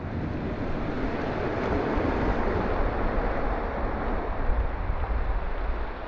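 Small waves breaking and washing up a sandy beach, with wind rumbling on the microphone.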